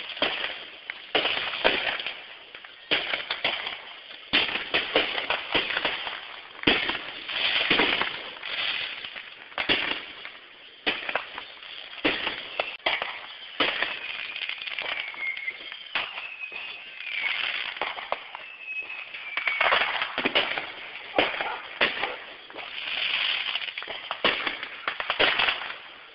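Consumer fireworks going off one after another: sharp bangs and crackling, with a few whistles falling in pitch about halfway through.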